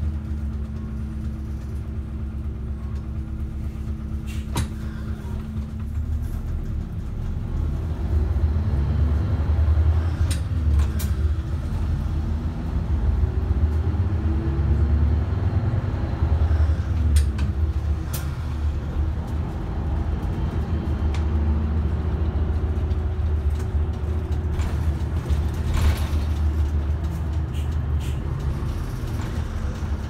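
City route bus heard from inside the cabin: the engine runs with a steady low rumble while the bus drives and slows in traffic. Its note rises and falls in the middle of the stretch, and a few sharp clicks or rattles sound here and there.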